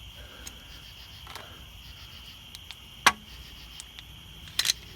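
Crickets chirping steadily in the background, with a few short sharp clicks and knocks of tools being handled: the loudest about three seconds in and a quick pair near the end.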